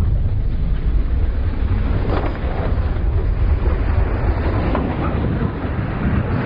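Low-flying floatplane's piston engine and propeller going past just overhead, a steady rumble mixed with heavy wind buffeting on the microphone.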